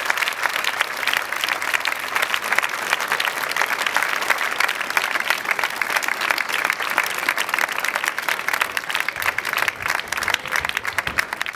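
Audience applauding: dense, steady clapping from many people that stops abruptly at the end.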